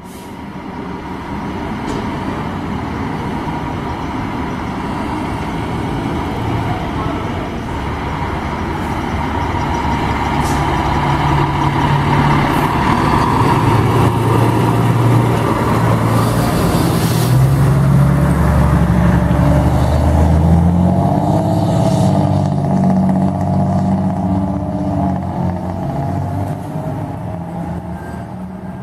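Fire truck's diesel engine running and revving in steps as the aerial ladder truck pulls out of the station, loudest midway and easing off near the end. A short hiss of air, like an air-brake release, comes about halfway through.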